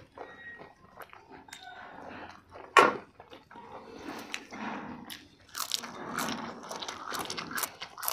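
People eating chicken drumsticks: biting and chewing, with many small irregular wet clicks and smacks, and one louder click about three seconds in.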